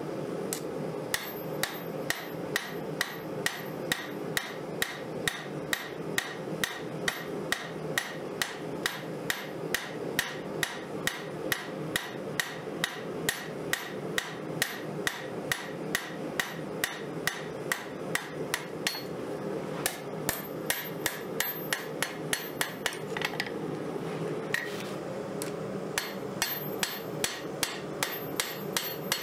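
Hand hammer striking a red-hot 5160 steel knife blade on an anvil to shape it, with sharp blows about two a second and a short pause about three-quarters of the way through. A steady low rushing noise runs underneath.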